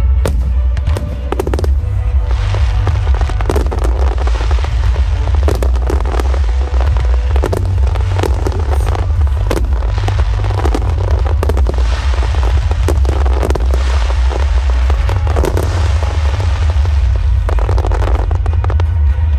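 Fireworks display: aerial shells bursting in quick succession with sharp bangs and crackling, over music playing throughout.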